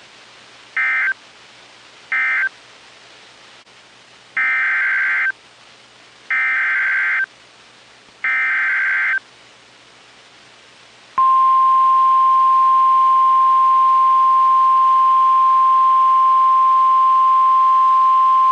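NOAA Weather Radio Emergency Alert System tones. First come two short, raspy SAME data bursts that close the previous warning, then three longer SAME header bursts for the next warning. About eleven seconds in, the steady 1050 Hz warning alarm tone starts and holds.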